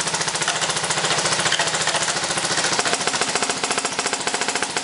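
Lancer Tactical M4 airsoft electric gun firing on full auto: a fast, steady, unbroken rattle of the gearbox cycling and BBs firing.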